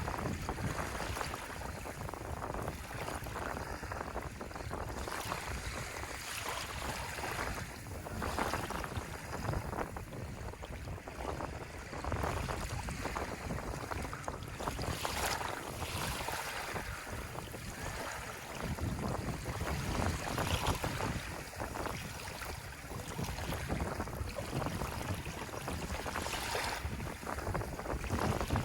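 Ocean waves washing ashore, the surf swelling and easing every few seconds, with wind rumbling on the microphone.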